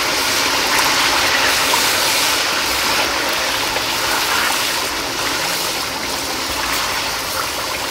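Chicken pieces frying in a wok in oil and their own watery juices: a steady dense sizzle and bubbling while a wooden spatula turns them. The juices have not yet cooked off, so the chicken is still stewing rather than browning.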